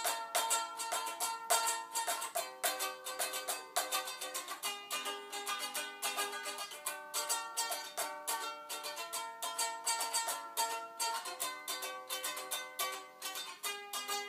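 Chords strummed on a 3D-printed PLA plastic ukulele with a Les Paul-style body, in a steady run of quick strums, the chord changing every two seconds or so.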